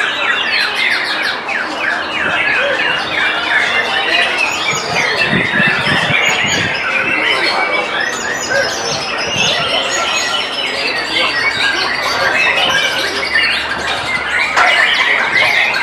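White-rumped shamas singing in a songbird contest: a dense, unbroken mix of overlapping whistles and chirps from several caged birds at once.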